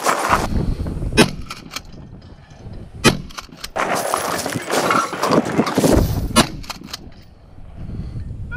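Kel-Tec KSG 12-gauge pump-action shotgun fired three times, a couple of seconds or more apart, with another shot right at the end. Each shot is followed by a few quick clacks as the pump is worked.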